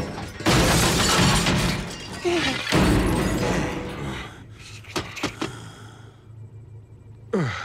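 Sound-effect crash and rumble, loud at first and fading away over about four seconds, followed by a few sharp clicks, with background music.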